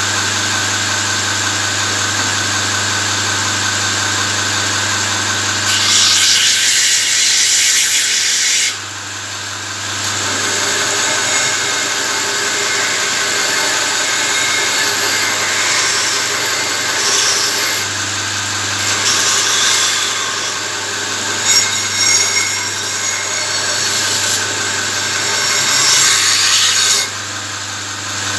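Belt grinder's electric motor running with a steady hum. From about six seconds in, a forged steel spearhead is pressed to the abrasive belt in repeated passes, giving a loud hissing grind that stops shortly before the end.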